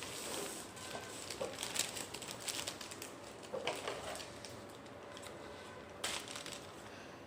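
Cardboard shipping box and its packaging being opened by hand: irregular rustling, crinkling and scraping with small clicks, busiest in the first few seconds, plus a sharper scrape about six seconds in.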